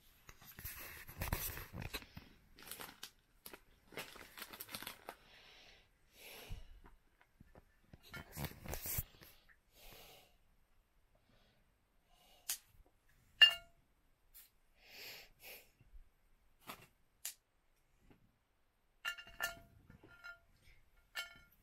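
Sweet wrapper rustling and tearing in fits and starts, then quieter chewing and mouth sounds with a few sharp clicks.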